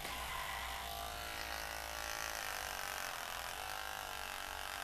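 Philips BT1000 cordless beard trimmer running with a steady electric buzz as it is drawn over chin stubble.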